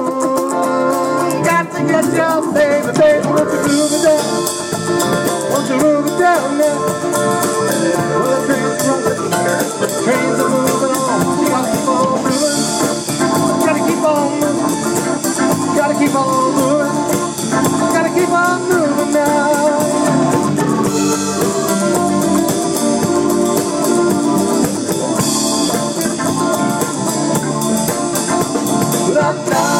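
Rock band playing an instrumental passage: a lead line with bending notes over guitar, bass and drum kit.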